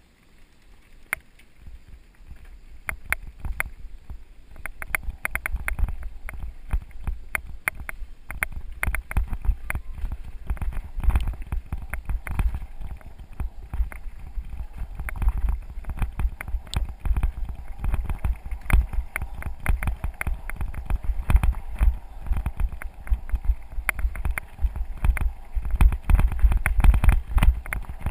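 Mountain bike riding over a loose gravel dirt track: dense, irregular rattling and knocking from the tyres and bike over the stones, with a low wind rumble on the microphone. Quiet at first, it builds over the first few seconds as the bike picks up speed.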